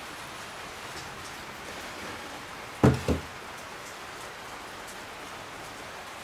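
Steady hiss of rain, with two heavy clunks close together about three seconds in as a steel differential ring gear is set down on a wooden workbench.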